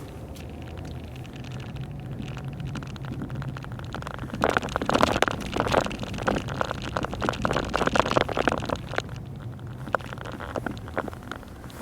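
Steady low hum of a car driving, heard from inside the cabin, with a dense stretch of loud crackling and pattering from about four and a half to nine seconds in.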